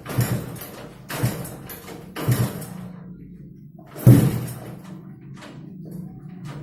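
Engine of a motorcycle upgraded to 200cc, running with a steady low hum and four sharp, loud bursts about a second apart.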